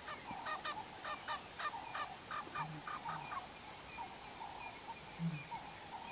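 A bird calling in a rapid run of short repeated notes, about three to four a second, that thins out and grows fainter after about three seconds.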